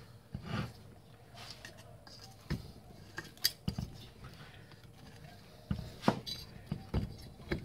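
Scattered metal clinks and clunks, about seven in all, as hand tools and the cylinder head of a Victa two-stroke lawn mower engine are worked on and handled on a workbench.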